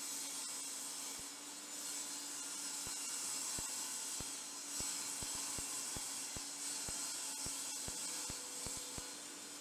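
A wooden board slid by hand across a table saw's metal top along the rip fence, a soft rubbing with a dozen or so faint light knocks, over a steady background hiss.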